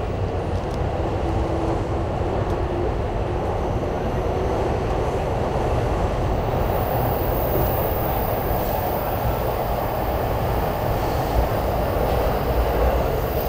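A train running past, a loud steady rumble with a faint high whine setting in about halfway through.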